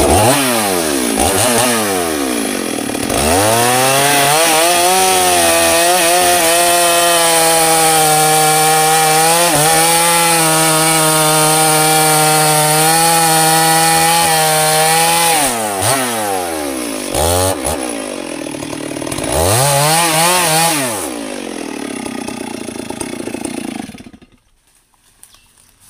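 Stihl 382 two-stroke chainsaw revving up and cutting through a sengon log, its engine held at a steady high pitch under load for about twelve seconds. It then drops back, revs up once more briefly, runs slower, and cuts off suddenly about 24 seconds in.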